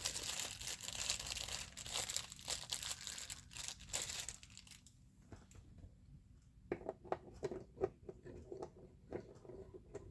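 Small plastic parts bag rustling and crinkling as a hand rummages in it for a screw, then a few light clicks and taps of small metal parts being handled.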